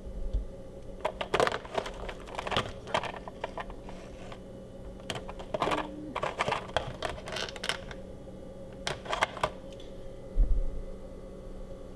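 Ingredients and containers being handled and set down on a kitchen counter: irregular clusters of small clicks, taps and knocks, with one heavier thump near the end, over a faint steady hum.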